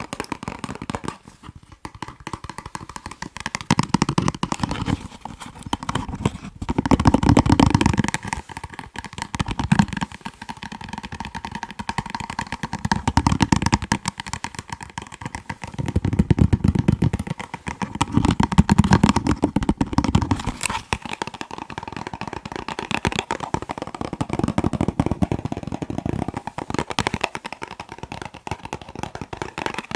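Fast tapping on boxes: a dense, continuous patter of quick taps, with stretches of a few seconds where the taps sound deeper and fuller.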